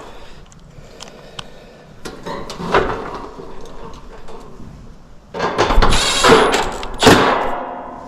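A cordless drill runs in two bursts, a short one about two seconds in and a longer, louder one about five seconds in that winds down near the end. Its battery is nearly dead.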